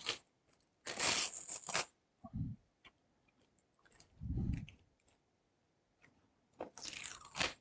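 Double-sided tape being pulled and torn from its roll: two short rasping tears, one about a second in and one near the end, with a couple of soft handling thuds between.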